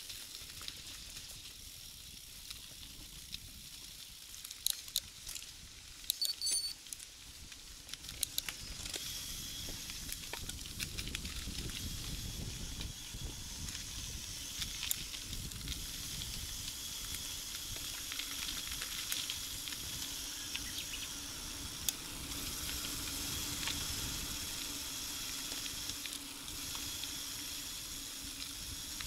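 Mountain bike rolling on a paved road: a steady hiss of tyres and air, with a cluster of sharp clicks and knocks about five to seven seconds in and scattered ticks after.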